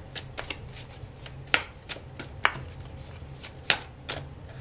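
A large deck of tarot cards being shuffled by hand: irregular sharp slaps and snaps of the cards against each other, about seven over a few seconds.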